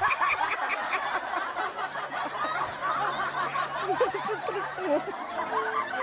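Laughter, opening with a quick run of giggles and carrying on over a steady low hum. The hum stops about five seconds in, and a short steady tone follows near the end.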